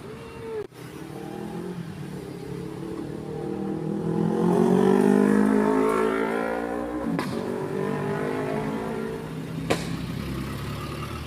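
Road traffic: a motor vehicle's engine drone grows louder as it approaches, is loudest about five seconds in, then drops in pitch as it passes. Two sharp clacks are heard, one as it passes and another near the end.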